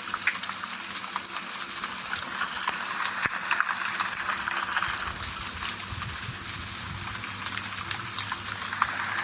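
Steady rain falling, a dense hiss with many individual drops ticking on hard surfaces, over a faint low hum.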